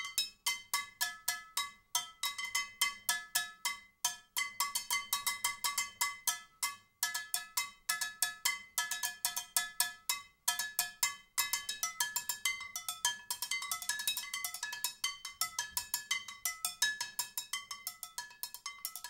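A skillet played as a percussion instrument: a fast rhythm of strikes, several a second, each ringing with a bell-like metallic tone. The strikes shift between a few different pitches, with brief pauses about 4, 7 and 10 seconds in.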